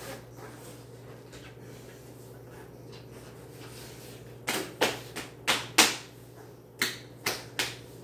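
Hand claps, about eight in all, in two quick runs in the second half: five close together, then three more after a short pause.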